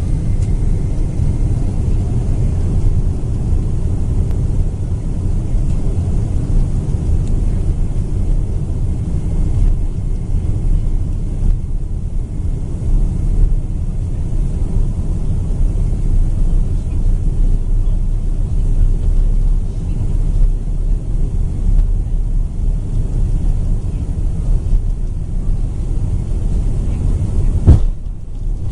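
Jet airliner takeoff heard inside the cabin: a steady, loud low rumble of the engines and the roll down the runway. Near the end a single sharp thump, after which the rumble briefly drops.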